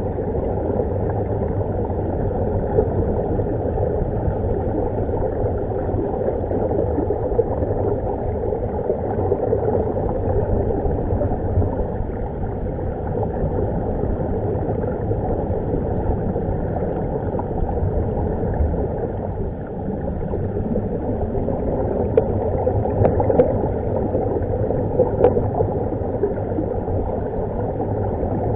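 Steady muffled underwater rumble and gurgle of escaping air bubbles from diving helmets and scuba gear, heard from underwater. A few small clicks near the end.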